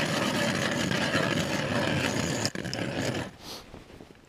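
A small engine running steadily close by, then cutting off suddenly about three seconds in.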